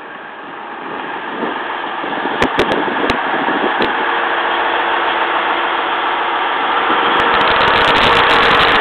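JR KiHa 110-series diesel railcar's engine running and growing steadily louder as the train moves off along the platform, with a few sharp clicks about two to four seconds in.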